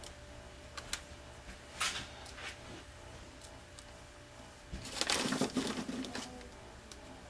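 Soft handling sounds: a few faint clicks and rustles, then a louder crinkly rustle about five seconds in, from hands working a plastic zip-top bag of broken Oreo cookies and the parchment paper lining the pan.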